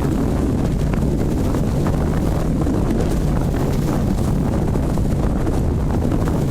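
Wind buffeting the microphone on the deck of a ship under way, over a steady low rumble.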